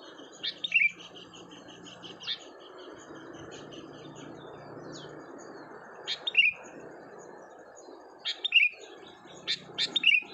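A decoy bird calling: loud, sharp chirps that fall in pitch, in short clusters every couple of seconds, with a quieter fast twittering run in the first few seconds, over a steady hiss.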